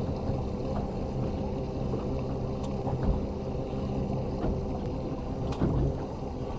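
Boat motor running steadily while trolling, with a couple of light knocks about halfway and near the end.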